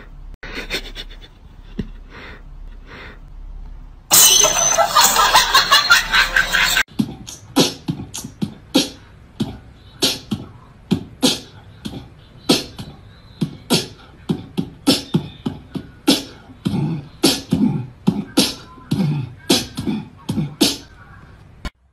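A cat's short, sharp breathy puffs, faint at first, then after a loud noisy stretch of about three seconds, a long run of them, about two or three a second.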